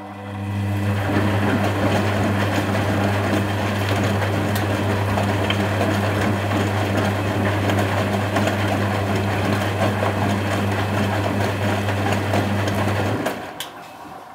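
Constructa Contura washing machine's drain pump running: a steady low hum over a rush of water, starting in the first second and cutting off about 13 seconds in.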